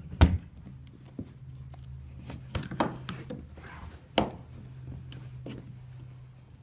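Scattered knocks and clacks of portable pool frame parts being handled and worked at where a piece is stuck, over a steady low hum.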